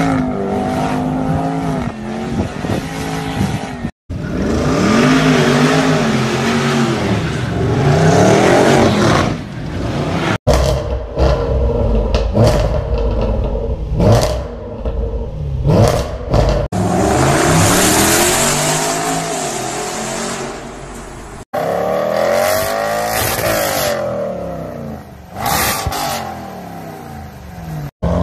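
Range Rover Sport SVR's supercharged 5.0-litre V8 revving and accelerating in repeated bursts, the exhaust note rising and falling in pitch. Between revs, a run of sharp exhaust pops and bangs.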